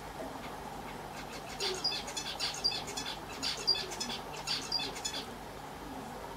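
Small animal chirping: a run of short, high chirps, a few a second, from about a second and a half in until about five seconds, over a steady low hum.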